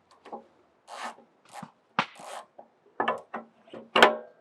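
Parts of a GRIT Freedom Chair wheelchair being handled as its lever bar is fitted into its socket: short scrapes and rubbing, with sharp knocks about two, three and four seconds in, the last the loudest.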